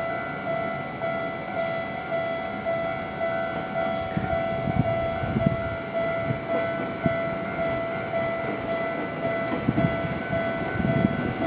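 Japanese level crossing warning alarm ringing in an even, repeating pulse of two tones, while a train's wheels start to knock over the rail joints from about four seconds in.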